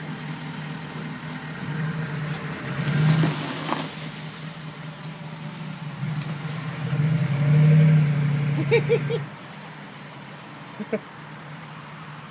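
1986 Chevrolet C30 dually's 6.2-litre Detroit diesel V8 working under load as the truck drags a shrub out by its roots. It revs up twice, the second and louder time about two-thirds of the way through, then drops back to a steady, quieter run about nine seconds in.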